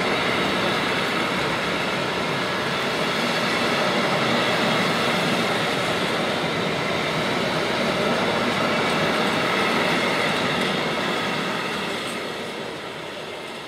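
Container wagons of a freight train rolling past: a steady noise of steel wheels on the rails with a high ringing, growing quieter near the end.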